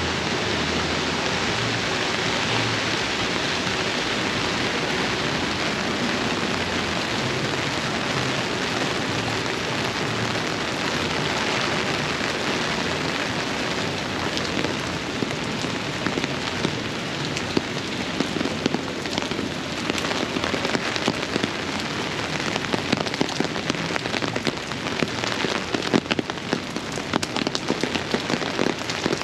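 Steady heavy rain falling, with sharp individual drop hits growing more frequent in the second half.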